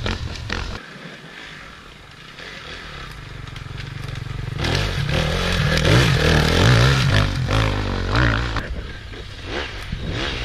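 Enduro motorcycles racing past: engine noise builds as a bike approaches, is loudest with its revs rising and falling about five to seven seconds in, then fades, and another bike comes up near the end.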